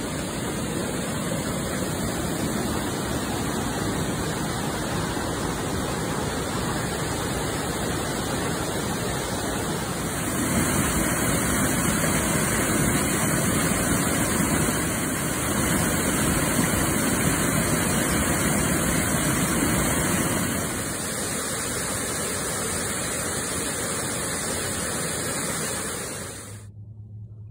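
Waterfall: water pouring over a rock ledge and crashing into the pool below, a steady rushing that grows louder about ten seconds in and eases again around twenty seconds. It cuts off suddenly near the end.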